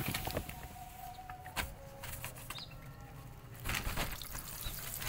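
Cats eating dry kibble from a china plate: scattered clicks and crunches. A short splashing pour of broth onto the kibble comes near the end.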